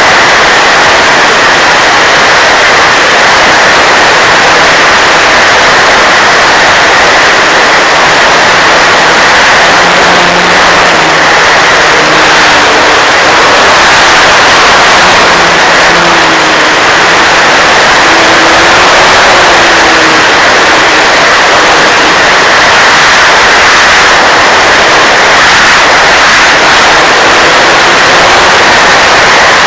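Loud, steady rushing noise with a strong hiss band and faint wavering tones beneath: an RC model plane's motor and wind noise blended into one unbroken roar.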